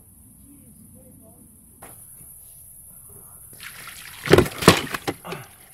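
Water poured from a bucket onto a plastic carp unhooking mat, splashing loudly in a few heavy gushes from about four seconds in. Before that there are only a few faint chirps.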